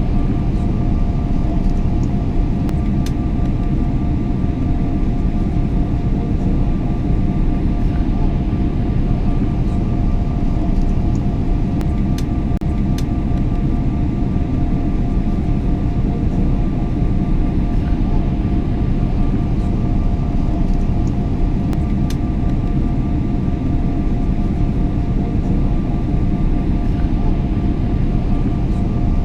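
Airliner cabin noise in cruise flight: a steady deep rumble of engines and airflow, with a faint steady hum on top and a few faint clicks.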